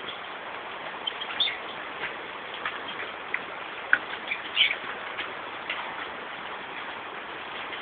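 Birds chirping a few separate times over a steady background hiss.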